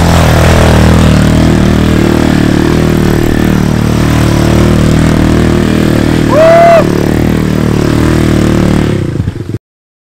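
A sport quad bike (ATV) engine running hard at fairly steady revs as the quad spins on a dirt track. About six and a half seconds in there is a brief high tone that rises and falls. The sound cuts off suddenly near the end.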